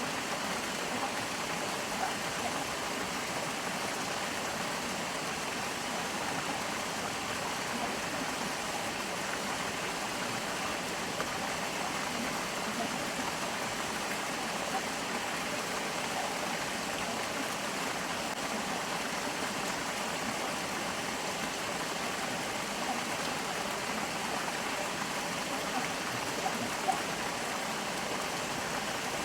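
Stream water flowing steadily over rocks, a continuous even rush and babble.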